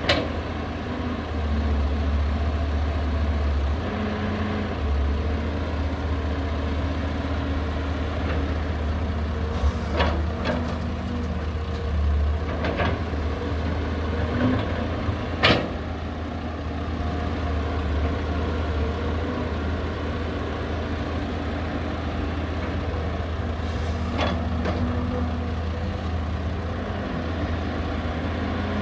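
Heavy diesel engines of an excavator and dump truck running steadily, with a deep drone and a few short sharp knocks spread through, the loudest about halfway.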